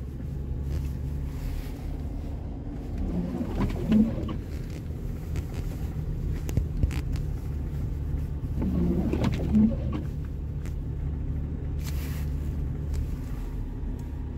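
All-wheel-drive car driving slowly through snow, heard inside the cabin as a steady low rumble of engine and tyres. A short pair of low hums comes about every five seconds.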